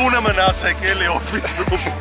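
Hip-hop music: rapped vocals over a steady deep bass and kick drums that drop sharply in pitch.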